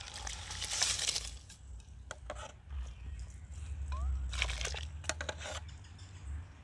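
Soaked rice and water poured from a metal bowl into a pot of boiling water, splashing and hissing in two pours, about a second in and again about four seconds in, with a few light clicks between them.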